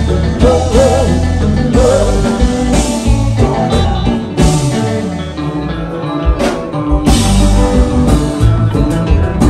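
Live band music led by an electric guitar, over steady bass and drums, loud and amplified. The guitar plays a lead line with wavering, bent held notes in the first couple of seconds.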